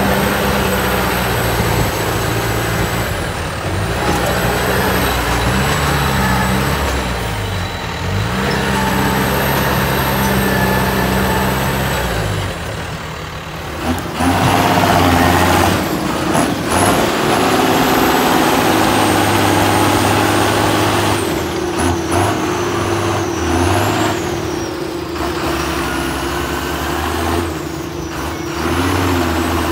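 John Deere tractor's six-cylinder diesel engine working hard, pulling sugar beet trailers through deep mud, its note rising and falling with the load. A thin high whine rides over the engine throughout.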